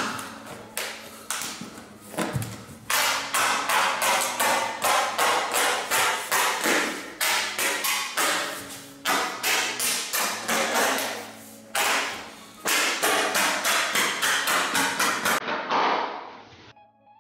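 Skirting boards being knocked into place along a wall: a fast run of sharp knocks and taps that stops abruptly near the end.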